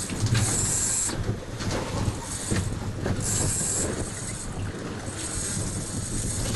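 Fishing boat under way in a rough sea: a steady low engine rumble under a constant wash of wind and water, with loud hissing surges of spray about half a second, three seconds and five seconds in.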